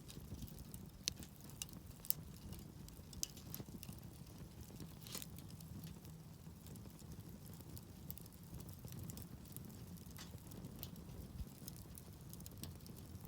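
Campfire crackling: sparse, irregular snaps and pops over a faint, steady low rumble.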